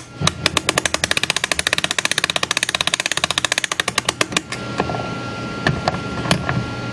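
Ratchet of an Ollie Baker-type mainspring winder clicking rapidly as its crank is turned on a clock mainspring barrel, about a dozen even clicks a second for some four seconds, then a few single clicks.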